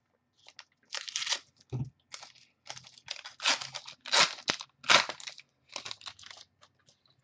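Crinkly wrapper of a trading-card pack being handled: a run of rustling, crunching crinkles that starts about a second in and dies away near the end.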